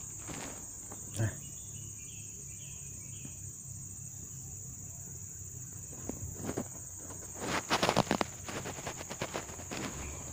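Steady high-pitched insect chorus running on throughout. A sharp click comes about a second in, and a burst of rustling and knocks, louder than the chorus, comes about three quarters of the way through.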